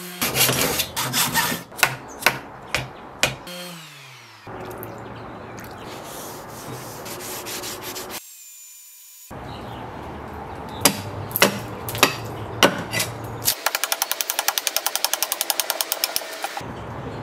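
A quick sequence of restoration sounds. Several sharp knocks come first, then an even rubbing as a rag wipes oil over the axe head. A hewing axe then strikes into wood a few times about half a second apart, followed by a fast run of fine clicks.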